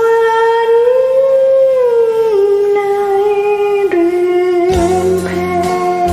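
Music: a slow melody of long, gliding notes over soft backing. About three-quarters of the way in, deeper backing notes and a few drum hits come in.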